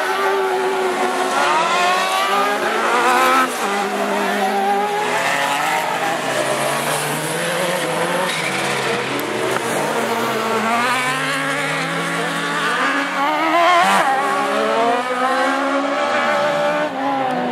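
A pack of autocross superbuggies racing, several engines revving at once, their pitch rising and dropping as the cars accelerate and shift.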